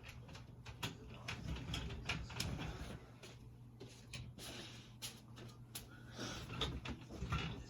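Irregular small clicks and rustling of hands handling and joining electrical wires at a ceiling fan's wiring.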